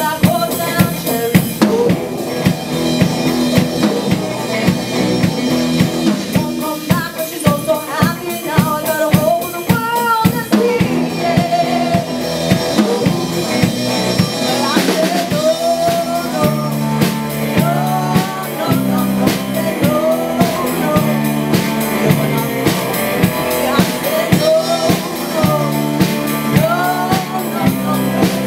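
A live band playing a song: a drum kit keeps a steady beat with snare and bass drum under electric and acoustic guitars and bass guitar, with a woman singing lead.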